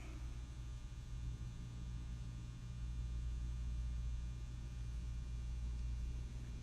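Steady low electrical mains hum with a faint buzz.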